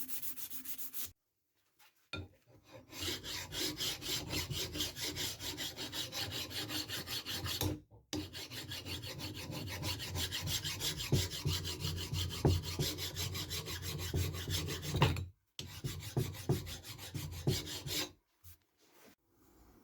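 A hand file or abrasive scraping the steel of a small anvil in quick, even back-and-forth strokes, several a second. The sound comes in several stretches separated by brief dead-silent cuts, with a few sharper knocks in the later part.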